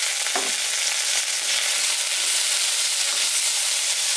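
Diced onion, garlic and tomato sizzling steadily in hot oil in a nonstick wok, sautéed as the aromatic base for pinakbet, with a spatula scraping and stirring through them. A brief scrape stands out about half a second in.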